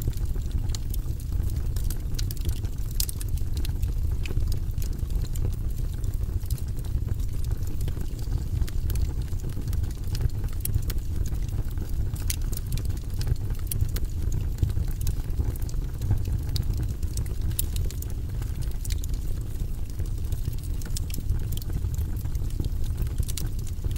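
Wood fire burning in a fireplace, the logs crackling and popping in frequent small, sharp snaps over a steady low rumble.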